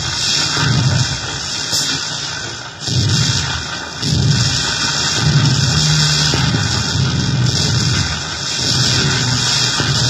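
Effects pedal on its first test, putting out loud, harsh distorted noise with a low throbbing that swells and dips irregularly.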